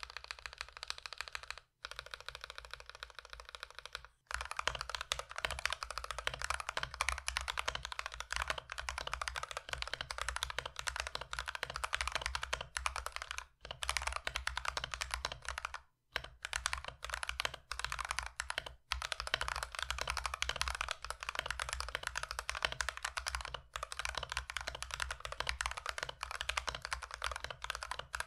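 Continuous fast typing on a mechanical keyboard fitted with stock Akko CS Starfish linear switches (two-stage spring), giving a poppy rather than thocky clack with little to no spring ping. The typing is lighter for the first few seconds, then dense, broken by a few short pauses.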